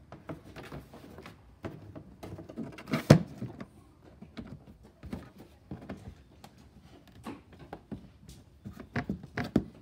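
Plastic battery compartment cover being fitted and pressed back into place: scattered plastic clicks and knocks, with one louder knock about three seconds in and several more near the end.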